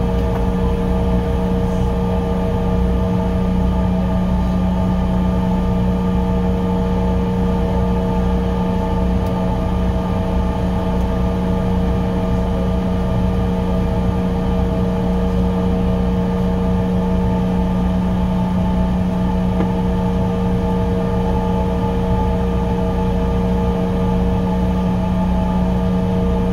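Steady cabin drone of a Bombardier CRJ700's rear-mounted GE CF34 turbofan engines, heard from inside the cabin: an even hum with several held whining tones that neither rise nor fall.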